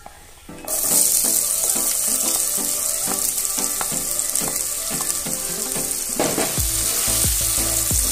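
Chopped onion tipped into hot mustard oil, which starts sizzling loudly just under a second in and keeps frying steadily. Near the end a spatula stirs the onions through the oil.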